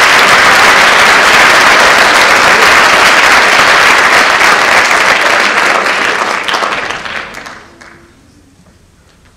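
Audience applauding, loud and steady, then dying away about seven to eight seconds in.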